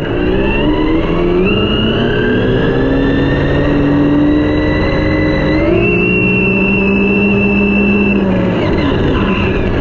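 Team Corally Kronos XP 6S brushless monster truck running flat out, heard from its onboard camera: a high motor and drivetrain whine over rushing wind and tyre noise. The whine jumps up in pitch twice, at about a second and a half in and again near the middle, then drops away near the end.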